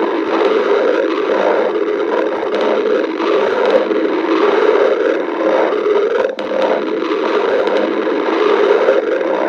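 A person's stomach growling and gurgling, picked up with the microphone close against the belly: a continuous low, uneven noise that pulses without a regular beat.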